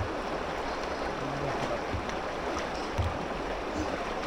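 River water flowing with a steady rush, with a single low thump about three seconds in.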